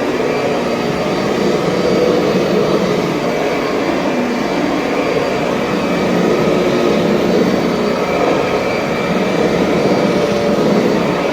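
Kirby Sentria upright vacuum cleaner running steadily, a loud even rush of air with a faint high motor whine over it.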